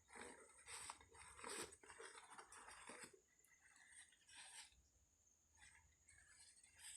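Faint rustling and crinkling of packaging being handled for an unboxing, in short bursts over the first three seconds, then quieter scattered rustles.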